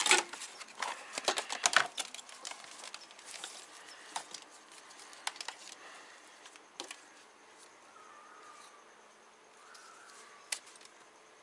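Wiring and plastic parts being handled by hand: a quick run of rustles and sharp clicks in the first two seconds, then scattered single clicks and quieter fiddling.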